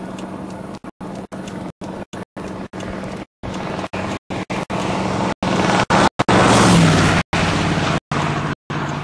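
Car engine hum and road noise from inside a moving car, with a louder rushing swell around six to seven seconds in. The sound keeps cutting out for split seconds in the recording.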